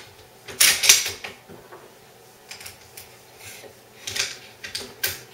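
Metallic clicks and clacks of a Zastava M70 AK-47 rifle being reassembled by hand, its bolt carrier and piston going back into the receiver. A loud clatter comes about a second in, followed by lighter scattered clicks.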